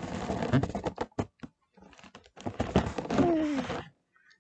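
Hands peeling backing paper and rubbing a vinyl number onto an air-filled foil balloon: crinkling, tapping and rubbing of the foil and paper in two busy spells, with a short squeak falling in pitch a little past the middle.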